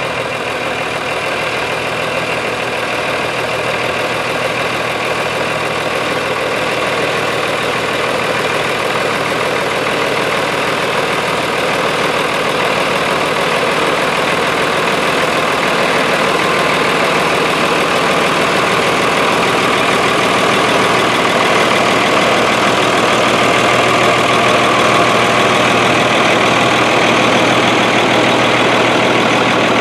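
Ford 9600 tractor's six-cylinder diesel engine running steadily at low speed while pulling a loaded trailer, growing slightly louder as the tractor draws near.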